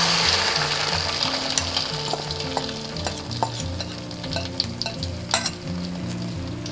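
Beaten egg and vegetable batter sizzling in hot oil in a wok, just poured in. The sizzle is loudest at first and slowly fades, with scattered spitting crackles.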